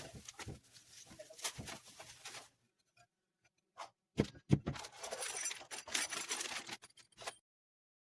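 Handling noise of hard plastic bird bath parts being moved about: irregular clicks, knocks and rustling in two stretches, stopping abruptly about seven seconds in.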